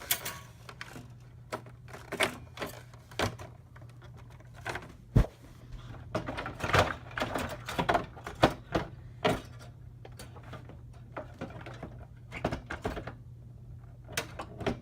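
GTX 970 graphics card being handled and fitted into a desktop PC case: scattered clicks and knocks, with one sharp knock about five seconds in, over a steady low hum.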